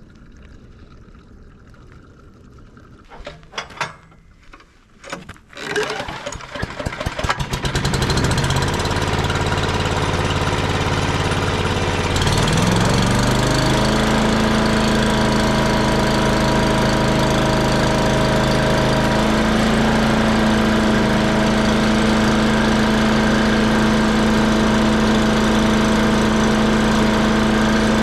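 Small gasoline engine of an old wood chipper being pull-started with a new carburetor fitted: a few sharp pulls, then it catches and runs. About twelve seconds in it revs up to a higher, steady speed and keeps running evenly.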